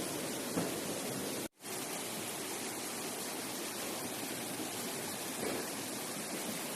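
Steady rush of flowing water from a stream or waterfall. It cuts out for an instant about a second and a half in, then carries on unchanged.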